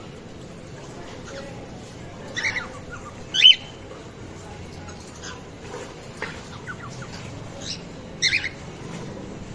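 Cockatiels calling: a few short, sharp calls, the loudest about three and a half seconds in, with fainter chirps between them.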